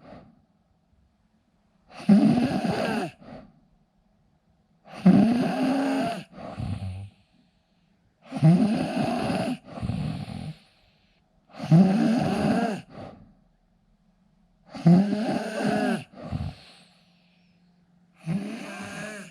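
A sleeping man snoring loudly and rhythmically, a rasping snore roughly every three seconds, most followed by a shorter, softer second sound.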